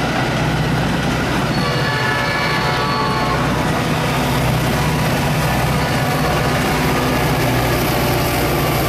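Metra diesel locomotive's engine running steadily under power as a commuter train of bilevel coaches moves off, with a low steady drone and the rumble of the cars.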